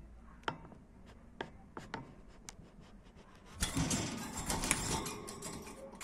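Budgies in a wire cage: a few scattered sharp clicks against the bars, then about three and a half seconds in a louder flurry of rustling and rapid clicks as a budgie moves and flutters about the cage.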